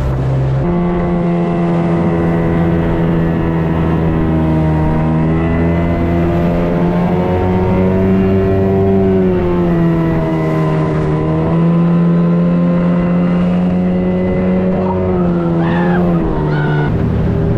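Outboard motor of a small aluminum jon boat running flat out at racing speed, a steady loud engine drone whose pitch rises just after the start, dips and recovers about ten seconds in, and shifts again near the end.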